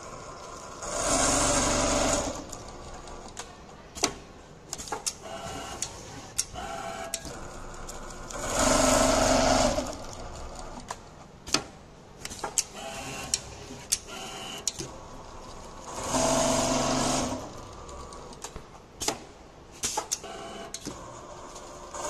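Richpeace automatic pattern sewing machine stitching slipper pieces in a template, with four louder spells of about two seconds each, roughly seven seconds apart, and sharp clicks in between.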